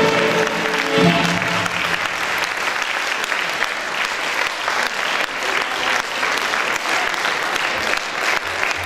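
An instrumental ensemble's final chord ends about a second in, and a hall audience applauds steadily.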